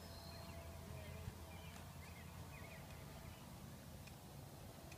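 Faint outdoor background: a steady low rumble with a few faint high chirps in the middle.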